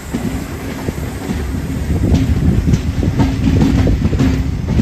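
Open goods wagons (BOXN type) of a freight train rolling past close by: a steady low rumble with the wheels clacking over rail joints, getting louder about halfway through.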